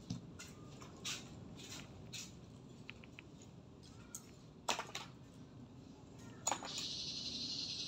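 Scattered light clicks and clinks of small cut pieces of CD being picked up and set down on a table and fabric, a few of them sharper. Near the end a steady high hiss lasts about a second and a half.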